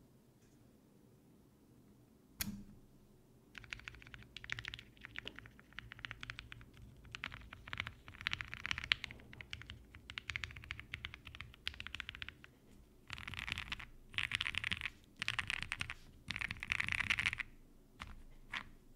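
Typing on a Ginkgo 65 mechanical keyboard with lubed Gateron Milky Yellow linear switches and PBT keycaps. A lone keystroke comes first, then steady runs of key presses, then three louder bursts of fast typing, and finally a few single keystrokes near the end.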